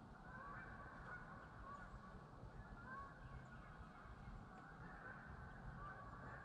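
A few geese honking as they fly over, faint, with many short calls scattered through.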